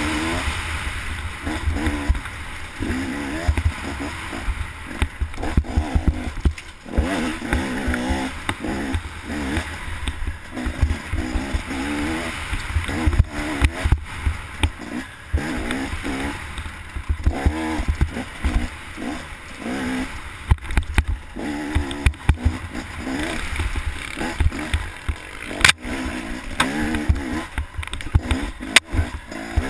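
Dirt bike engine revving up and down repeatedly as it is ridden over a rough forest trail, with frequent sharp knocks and rattles from the bumpy ground, one loud knock near the end.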